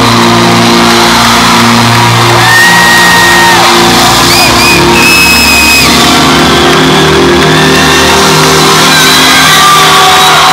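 Loud live concert music over an arena sound system: sustained low chords, with the crowd shouting and several high held screams of about a second each.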